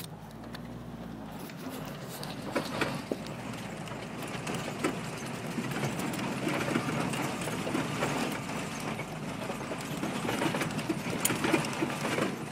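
Jeep crawling over a rough, rocky four-wheel-drive track, heard from inside the cab: tyres crunching over loose rock, with irregular knocks and rattles over a low, steady rumble.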